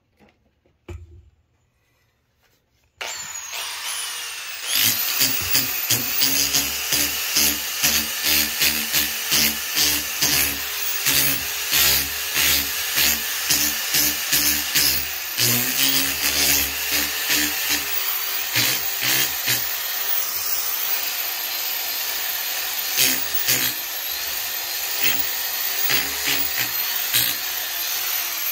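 Cordless drill spinning a sanding disc against charred wood, abrading the burnt surface. It starts about three seconds in, gets louder a couple of seconds later, and then surges and dips over and over as the pad is pressed on and eased off, the motor pitch sagging and recovering.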